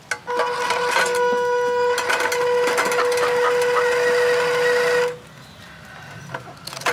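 A horn sounding one long steady note for about five seconds and then stopping, with short clicks and knocks over it.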